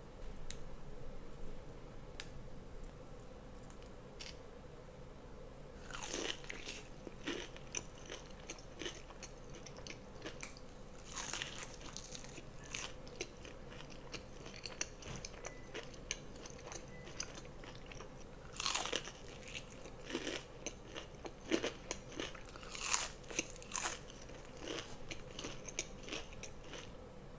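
Close-miked biting and chewing of crispy breaded fried chicken tenders: a run of sharp crunches that starts a few seconds in, with the loudest bites clustered past the middle.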